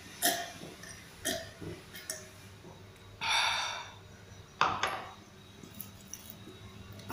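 A person drinking water from a glass: a few gulps, a breathy exhale a little past three seconds in, then the glass set down on the table with a sharp clink about halfway through.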